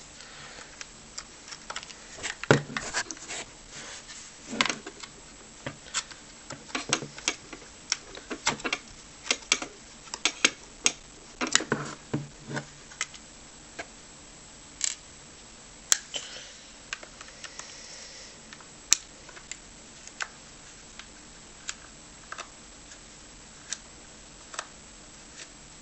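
Screwdriver backing small screws out of a plastic Bluetooth speaker housing, with the parts handled on a desk: irregular small clicks and taps, thickest in the first half and thinning out later.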